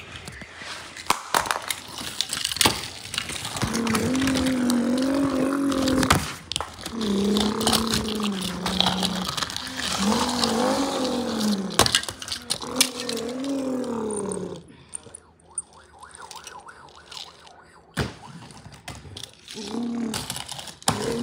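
A child's voice making long, wordless, wavering car noises by mouth in several held stretches through the first half, over repeated clicks and knocks of die-cast toy cars clattering on cardboard.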